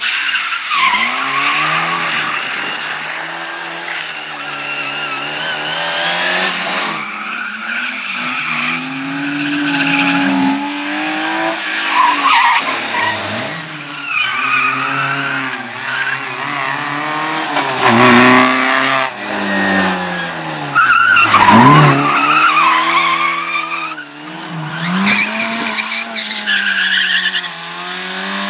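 Competition car driven hard through slalom turns: the engine revs up and drops again over and over as the driver accelerates, lifts and changes gear, with tyres squealing and skidding through the corners.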